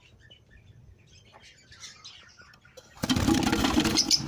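Faint chirping from caged budgerigars and lovebirds, then about three seconds in a loud rasping, rattling noise that lasts a little over a second.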